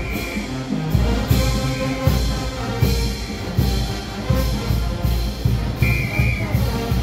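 Brass band playing a parade tune, with held brass notes over a steady drum beat and cymbal strokes about once every three quarters of a second.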